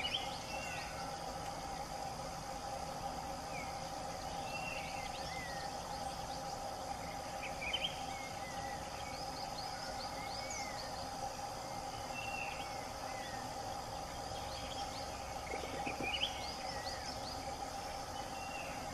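Forest ambience: a steady drone of insects, with short bird chirps and whistles scattered throughout.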